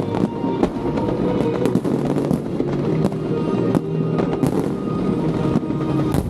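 Fireworks bursting in a rapid, irregular run of bangs and crackles, with music playing underneath.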